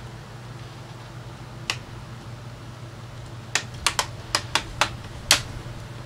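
Plastic snap-fit clips of a Samsung RF511 laptop's bottom case cover clicking loose as the panel is pried off: a single click, then a quick run of about seven sharp clicks, the last the loudest.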